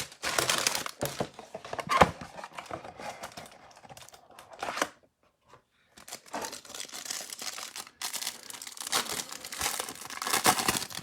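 Plastic wrapping being torn and crinkled as a trading card hanger box is opened, in irregular rustles with a sharp crackle about two seconds in and a brief pause about five seconds in.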